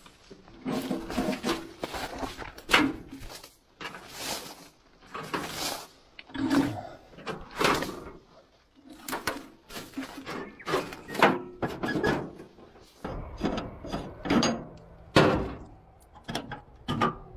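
Irregular knocks, clunks and scrapes of metal parts on an old David Brown 25 tractor being handled and worked on.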